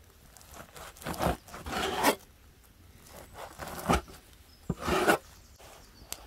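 Heavy cleaver chopping raw offal on a wooden cutting board: about five sharp knocks of the blade hitting the board, unevenly spaced, with a short rasp as the blade cuts through the meat before some of them.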